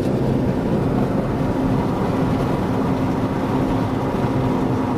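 Steady road and wind noise inside a car moving at highway speed, with air rushing in through a window that has just been rolled down.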